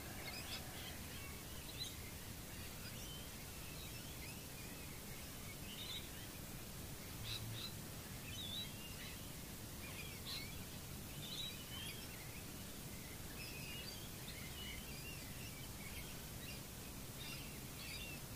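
Birds chirping and calling on and off over a faint, steady low background hum of open-air ambience.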